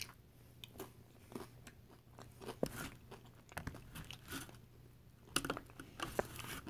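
Close-up chewing of crunchy tortilla chips loaded with queso and salsa: irregular crunches and small crackles, louder about five and a half seconds in.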